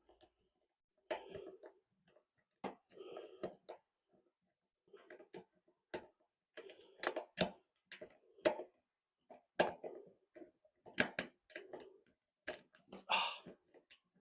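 Irregular clicks and metallic knocks of hand tools working loose a bolt on a car's front-end brace.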